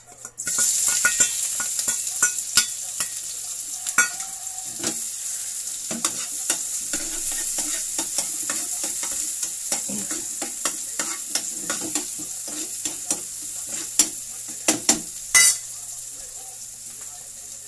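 Chopped onion, garlic and chili dropped into hot cooking oil in a frying pan, sizzling hard at once, then slowly settling. A spatula taps and scrapes against the pan as they are stirred, with a few louder knocks near the end.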